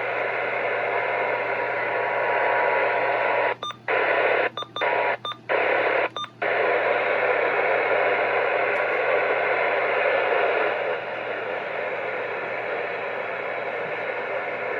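Steady hiss of static from a radio receiver, cut by four brief dropouts about four to six seconds in and somewhat quieter after about eleven seconds.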